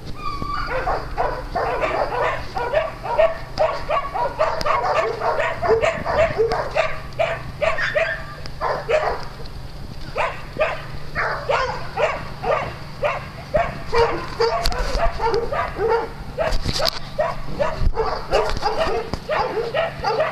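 Several small dogs barking and yipping continuously, short high barks coming a few times a second and overlapping one another.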